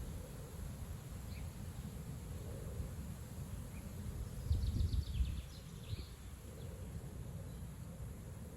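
Strong wind gusting over the microphone: a low, steady rumble that swells to its loudest about halfway through. A few faint high bird chirps come at the same time.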